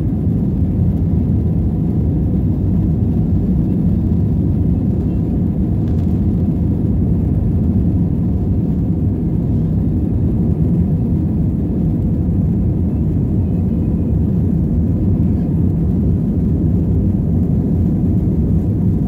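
Jet airliner heard from inside the cabin as it rolls along the runway: a loud, steady, low rumble of engines and wheels on concrete.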